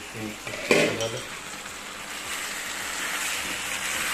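Small chicken cubes frying in oil and spices in a non-stick pan that has just been uncovered, with a spatula stirring them. The sizzle is a steady hiss that grows a little louder over the last couple of seconds.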